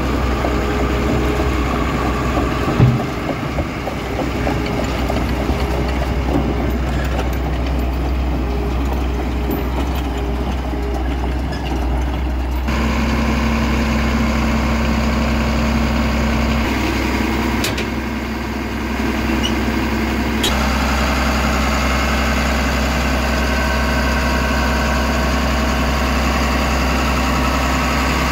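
Caterpillar 3116 turbocharged six-cylinder diesel of a Cat AP-1050 asphalt paver idling steadily, with a single sharp knock about three seconds in.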